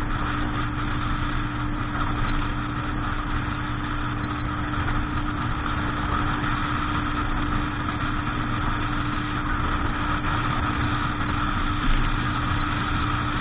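Motorboat engine running steadily, a constant drone with no change in speed.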